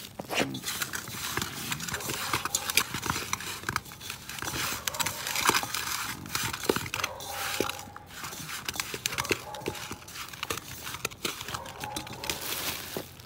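Hands mixing raw buffalo meat with masala in a metal pot: wet squishing and crinkling, with many small irregular clicks throughout.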